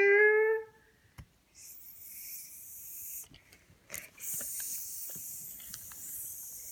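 A child holds a long sung note for under a second, then a few light clicks and a steady high hiss as a tape measure is handled and its blade slides.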